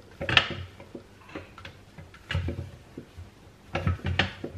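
A spatula knocking and scraping against a stainless steel mixing bowl: a series of short knocks and clicks in small clusters.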